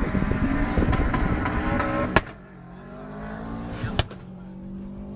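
Drag-racing car engines accelerating hard, loud, with rising pitch. About two seconds in a click cuts it off abruptly, and a quieter car engine revs up and down; another click comes about four seconds in.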